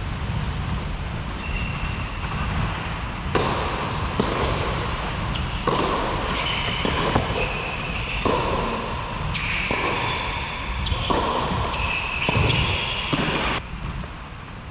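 Tennis rally on an indoor court: racket strikes and ball bounces with short bursts of court noise between them, over a steady low rumble. The rally stops abruptly near the end.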